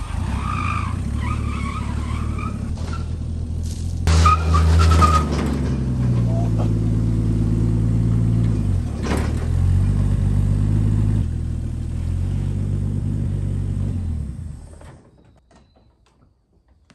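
The Chevrolet 250 inline-six of a Squarebody K10 pickup running rough as the truck creeps forward, revved up and down again and again to keep it from stalling, typical of an out-of-tune carburetor and a likely shot accelerator pump. A wavering high squeal rides over the engine in the first three seconds and again about four seconds in. The engine shuts off about fifteen seconds in.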